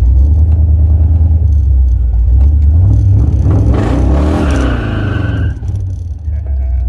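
1968 Camaro's engine rumbling through its chambered exhaust while driving, a deep steady drone. About three seconds in the sound swells with sweeping pitch and a rush, then the level falls away after about five and a half seconds as the throttle eases.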